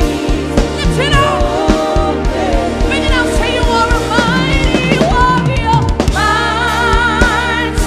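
Live gospel worship music: sung melody with vibrato over a band with sustained keyboard chords, bass and a steady drum beat.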